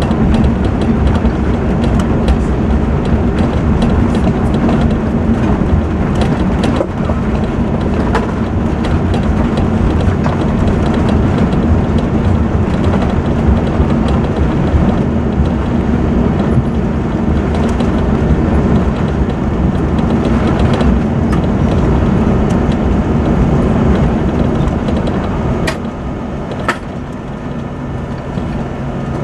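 Loud, steady cabin noise of an Airbus A380 on its landing rollout: the Rolls-Royce Trent engines running and the undercarriage rumbling on the runway as the airliner decelerates. About 26 s in the noise drops as the aircraft slows, with two brief clicks.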